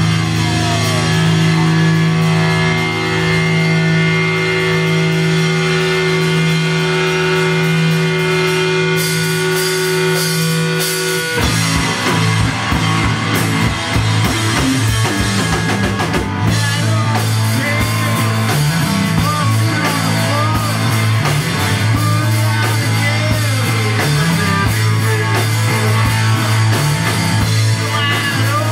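Live rock band playing loud: held, droning guitar tones for about the first eleven seconds, then the drums come in and the full band plays a driving beat.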